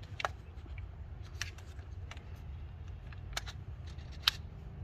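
Scattered light clicks and knocks from a Ruger SFAR .308 semi-automatic rifle being handled and checked after a failure to feed, over a low steady background rumble.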